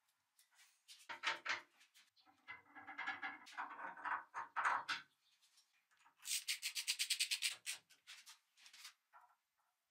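Hand work on a part: intermittent rubbing strokes, then a quick, even run of about a dozen sharp strokes or clicks lasting just over a second, about two-thirds of the way through.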